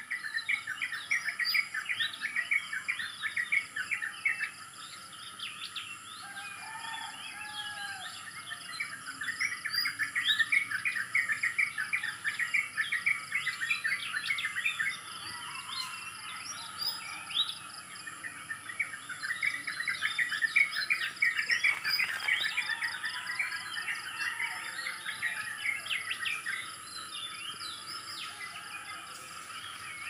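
Many small birds chirping and twittering in dense overlapping bursts that swell and ease off in waves every several seconds, over a steady high insect drone of several even tones.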